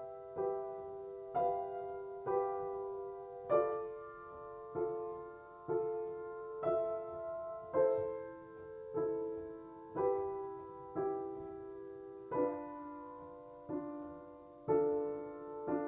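Slow solo piano music: notes struck about once a second in the middle register, each left to ring and fade.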